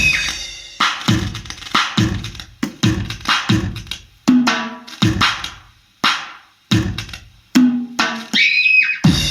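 Drum and percussion sounds from a Roland SPD-20X electronic percussion pad being played: a run of sharp, irregularly spaced hits, some with short pitched tones.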